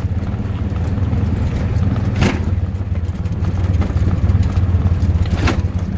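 Tuk-tuk (auto-rickshaw) engine running steadily as a low rumble while riding, with two sharp knocks about two seconds in and near the end.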